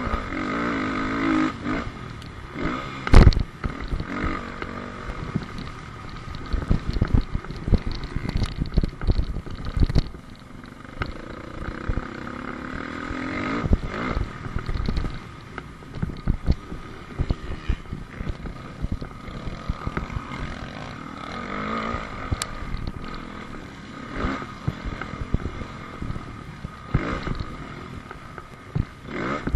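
Dirt bike engine revving up and down as it is ridden over motocross jumps, heard from a helmet camera, with many knocks and buffets on the microphone and one loud knock about three seconds in.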